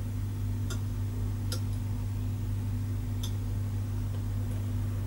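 Steady low hum with three faint, sharp ticks at uneven intervals, from a network video recorder and its internal hard drive booting up after power-on.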